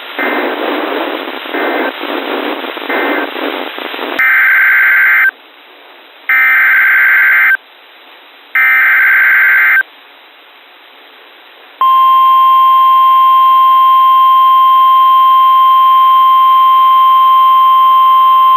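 Weather-radio alert header: three loud, buzzy SAME digital data bursts, each about a second long and a second apart, starting about four seconds in. A steady, loud 1050 Hz NOAA Weather Radio warning alarm tone follows from about twelve seconds in; together they signal the start of a new warning broadcast. Before the bursts, a few seconds of hissy, static-laden radio audio.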